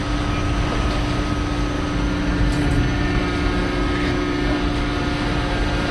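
Small boat's engine running steadily under way, a constant drone with a steady hum, mixed with the rush of wind and water.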